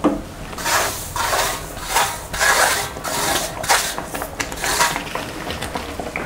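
Wooden spatula stirring and scraping against a steel pan of hot sugar syrup in repeated strokes, about one or two a second, growing fainter near the end.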